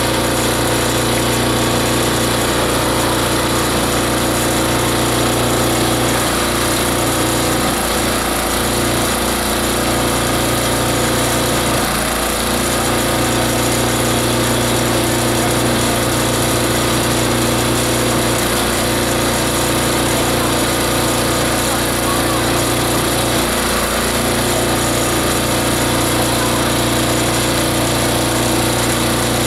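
Multi-blade shredder-grinder running steadily while grinding organic material, a constant loud mechanical drone with a whine over it. Its low hum dips briefly about three times.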